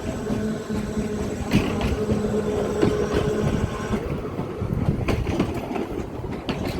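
Electric tram running along the track, with a steady motor hum and scattered clicks and knocks from the wheels on the rails.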